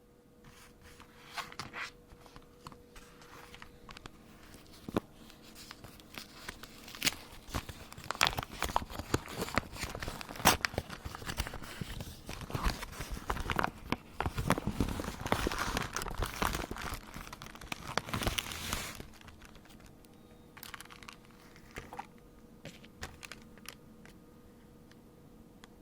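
Packaging being crinkled and torn open by hand, with many sharp clicks and rustles, busiest through the middle and thinning to a few light handling noises near the end.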